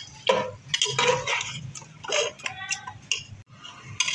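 A perforated metal skimmer scraping and knocking against a metal pot in irregular clicks and clanks as beef pieces are stirred while browning in ginger-garlic paste.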